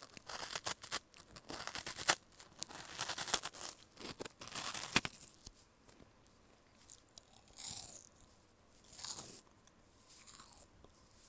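Close-up crunching and chewing of an Umaibo puffed corn snack stick, bitten straight from its wrapper. Dense crisp cracks for about five seconds, then it settles into quieter chewing with a few softer sounds.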